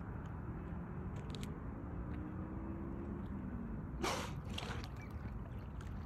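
Bottlenose dolphin surfacing and blowing: one sharp, loud exhale through the blowhole about four seconds in, followed by a fainter breath about half a second later, over a steady low background noise.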